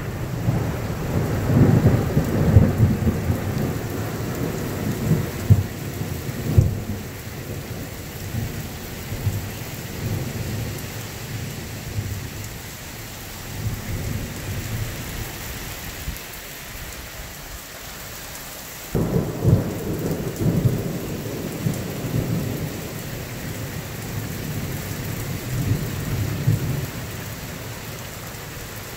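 Thunder rumbling over steady rain. The rumble rolls and fades through the first half; a fresh peal breaks in sharply about two-thirds of the way through and rolls away again.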